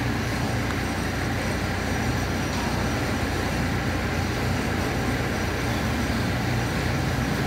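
Steady, even background rush with no distinct events.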